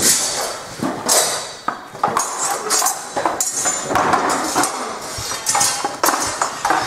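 Steel swords clashing against blades and steel bucklers in sword-and-buckler sparring: repeated irregular metallic clanks and clinks from more than one pair of fencers.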